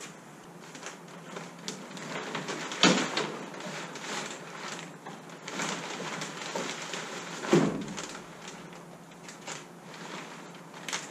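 Wooden mast knocking and clattering against the boat as it is raised upright and set into its mast step, with two heavy knocks about five seconds apart amid lighter knocks.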